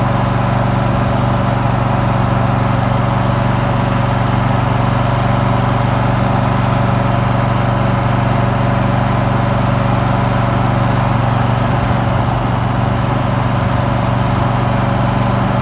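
Riding lawn mower engine running steadily at a cruising pace while the mower is driven along, a loud even hum with no change.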